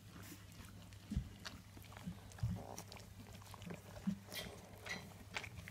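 Eighteen-day-old fox red Labrador puppies making small grunts and squeaks with faint snuffling and mouthing sounds, and two thumps in the first half.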